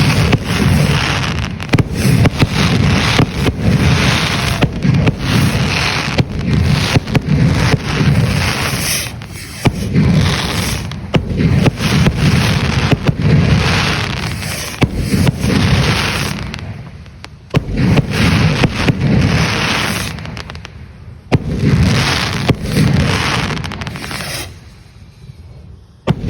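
A barrage of fireworks rockets launching and bursting: a continuous hissing, crackling din full of sharp bangs, easing off briefly a few times near the end.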